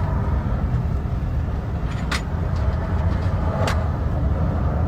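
Steady low rumble of road vehicles, with two brief clicks about two and three and a half seconds in.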